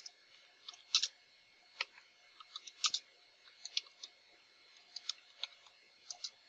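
Computer keyboard being typed on: irregular, fairly faint key clicks, a few a second, as a command is entered.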